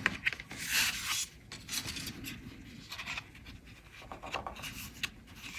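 Paper being rubbed and slid against a card base by hand, soft irregular rustling and scraping as a glued paper panel is shifted into place and pressed down.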